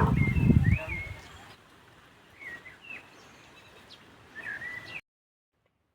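Small birds chirping, a few short rising-and-falling calls spread across several seconds, with a loud low rumble of handling or rustling noise in the first second. The sound cuts off suddenly about five seconds in.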